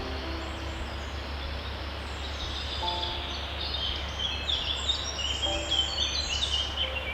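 Small songbirds chirping in quick, high, overlapping notes, busiest in the second half, over a steady low hum.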